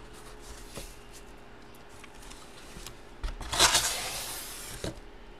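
A cardboard card box being handled and opened: a few small taps and clicks, then a rustling cardboard scrape lasting about a second and a half, starting about three seconds in.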